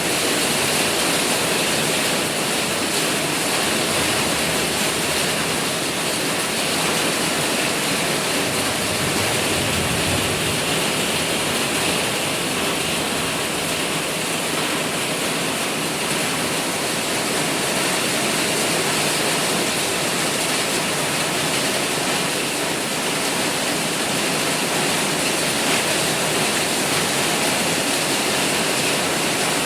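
Heavy rain pouring down in a steady downpour, a dense even rush of water.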